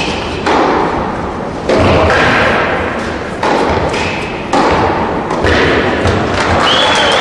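Tennis rally: a ball struck by rackets five times, about once a second, each hit sharp and followed by a long echo in a large indoor hall. There are a few short high squeaks between hits.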